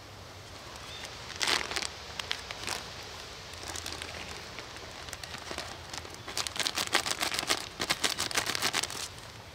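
Plastic bag crinkling and crackling in the hands as diced tomato and onion are squeezed out of it. There is a short burst about a second and a half in, scattered crackles after it, and a louder, denser run of crinkling over the last three seconds.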